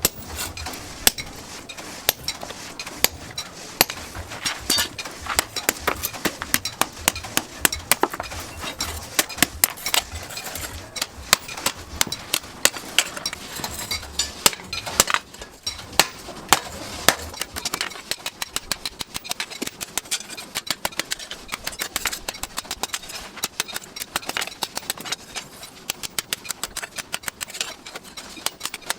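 Hammer blows on a piece of chainsaw steel being worked into a knife blank: many quick, irregular metal strikes, several a second.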